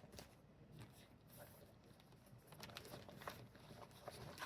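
Faint, scattered rustling and light clicks of a clothing package being handled and opened, a little busier in the second half.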